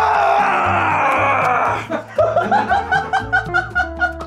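A man's loud, strained yell, falling in pitch and breaking off about two seconds in, followed by quick bursts of laughter, over background music.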